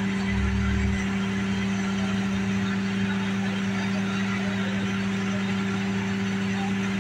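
Steady engine hum of a fire engine running at the scene, with a constant low drone over street noise and a brief low rumble about half a second in.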